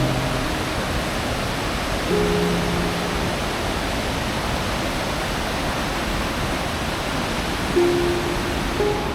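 Steady rush of a river waterfall, heard as a constant roar. Soft background music lies over it, with a few held notes about two seconds in and again near the end.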